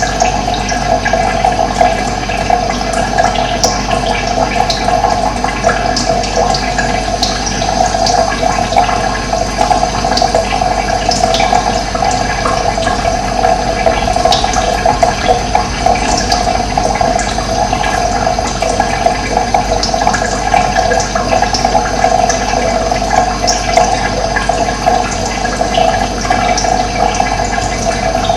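Running water, a steady rushing flow, with many brief high ticks scattered through it.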